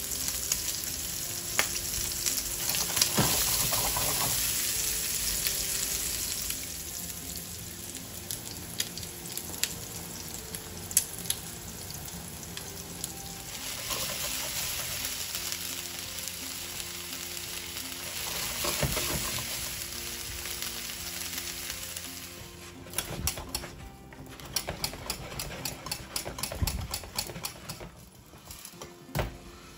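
Diced bacon lardons, then halved button mushrooms, sizzling as they fry in oil in a pan, the hiss swelling and easing. Near the end the sizzle gives way to rapid irregular clicking of a wire whisk against a glass bowl as mashed potato is whisked.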